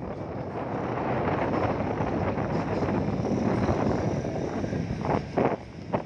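Wind buffeting the microphone in a steady rush that eases about five seconds in, broken by two short gusts.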